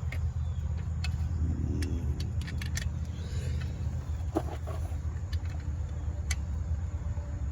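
Sharp metallic clicks and clinks of a wrench working a bolt, with a short metal ring about halfway through, over a steady low engine hum.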